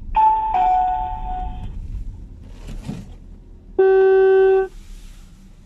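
A two-note electronic chime, a higher note stepping down to a lower one and ringing briefly. Then, nearly four seconds in, a loud flat beep lasting about a second that cuts off sharply.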